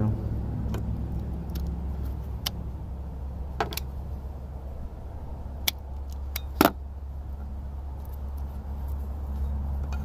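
Scattered sharp clicks of hand tools, wire cutters and strippers, trimming and stripping wire ends. The loudest click comes about two-thirds of the way in. Under them runs a steady low hum.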